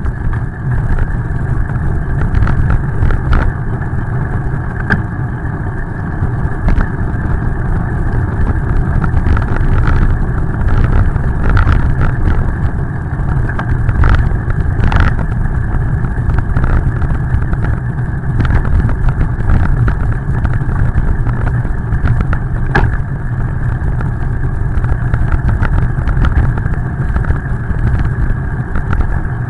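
Wind buffeting the microphone of a camera riding on a moving bicycle: a steady low rumble with a fainter hiss, broken by scattered sharp ticks.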